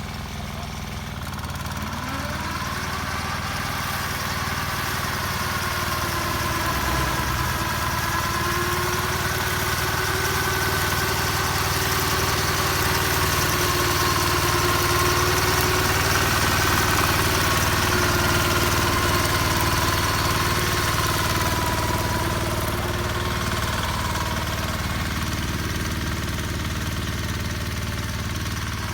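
Kawasaki BM91 rotary-disc grass mower's diesel engine running steadily, with a whine that rises in pitch about two seconds in and then wavers up and down, growing louder toward the middle and easing off near the end.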